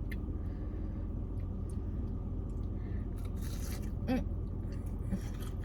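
A person eating breaded fried chicken strips, with small mouth clicks and a crunchier bite about three and a half seconds in, then a brief hummed "mm" just after. A steady low hum runs underneath throughout.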